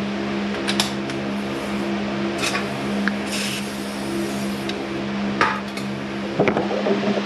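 Scattered metal clinks and knocks of hand tools being set on a lower control arm's 21 mm nut and bolt, over a steady machine hum.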